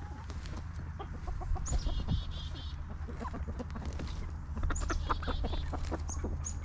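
Backyard chickens clucking, with two runs of quick, high chirping.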